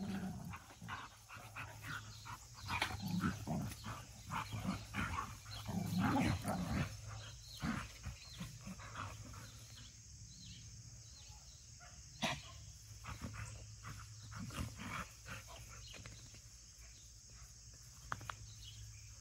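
Three dogs play-fighting, with short growls, snaps and scuffles coming in dense bursts over the first seven seconds or so. After that it is quieter, with a few sharp clicks.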